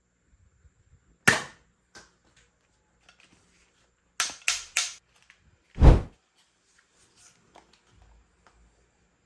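Sharp snaps from a spring-powered airsoft toy pistol being cocked and fired: one about a second in, three in quick succession around four seconds, then a heavier, deeper thump near six seconds.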